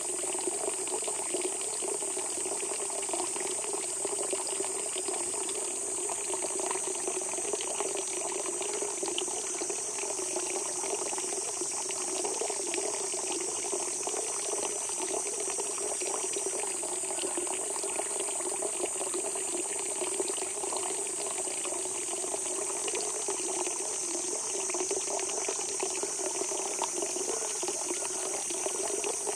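Spring water gushing up out of the ground and flowing, a steady, unbroken rush of water.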